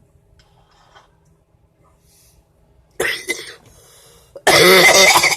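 A woman coughing from cigarillo smoke: one short cough about three seconds in, then a louder run of coughs near the end.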